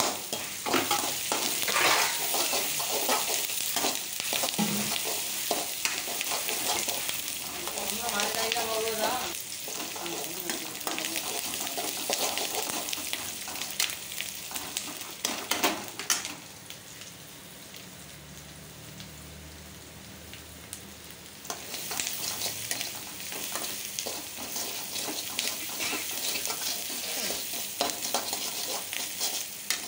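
Sliced onions and chillies sizzling in hot oil in a metal kadai, stirred with a steel spoon that scrapes and knocks against the pan. For about five seconds past the middle the scraping stops and the sizzle goes quieter, then the stirring starts again.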